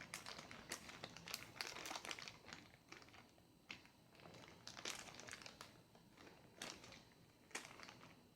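Packaging crinkling as it is handled: a dense run of crackles at first, then single crackles now and then.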